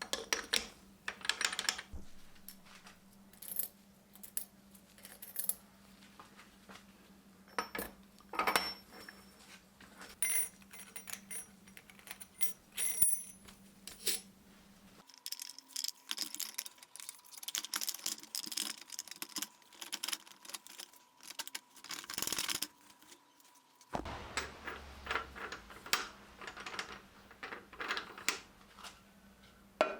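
Metal gearbox parts and hand tools clinking and tapping against each other in irregular bursts while a gearbox is reassembled on the bench.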